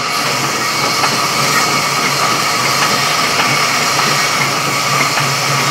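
Sawmill saw machinery running steadily: a loud, unbroken mechanical noise with a constant hum.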